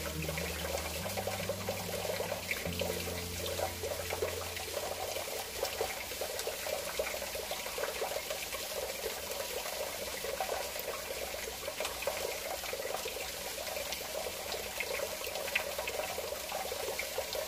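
Kitchen tap running a thin, steady stream of water into a stainless steel sink, splashing onto a plate in the basin.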